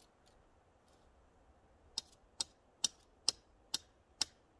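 A hammer striking a tent stake being driven into frozen ground: six sharp ticks, about two a second, starting about two seconds in.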